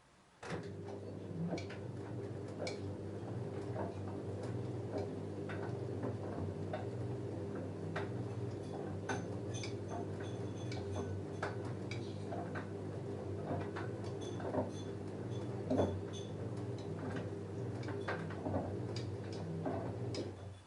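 LG F10A8HDS5 front-loading washing machine turning its drum with a load of jeans: a steady motor hum with scattered clicks and knocks as the denim tumbles. The drum starts about half a second in and stops suddenly just before the end, the usual turn-and-pause of a wash cycle.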